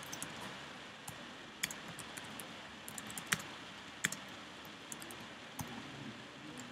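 Typing on a computer keyboard: irregular key clicks, a few of them louder, over a faint steady hiss.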